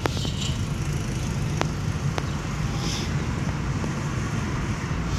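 Steady low rumble of a car's engine and tyres, heard from inside the cabin as it drives slowly along a street. A few faint sharp clicks sound over it.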